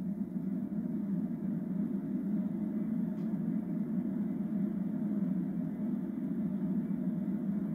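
Steady low rumble with a light hiss, coming from a TV speaker that is playing a rocket launch webcast between narration lines.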